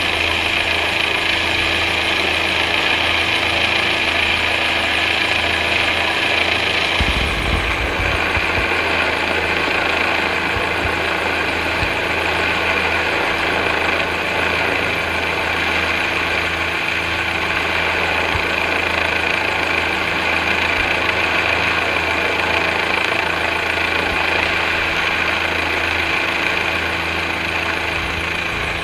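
Turbine helicopter hovering overhead: a steady, loud turbine whine over the rotor noise.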